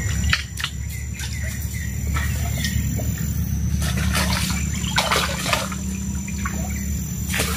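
Jungle stream ambience: the steady low rush of flooded stream water, with birds chirping over it and a thin steady high tone.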